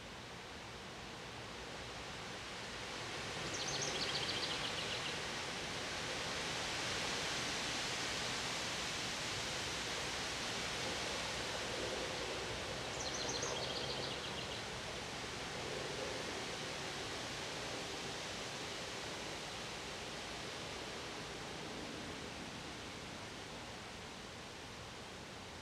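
Wind gusting through trees, a steady rushing that swells about four seconds in and slowly eases toward the end. A bird gives a short, high, stepping-down chirp phrase twice, about ten seconds apart.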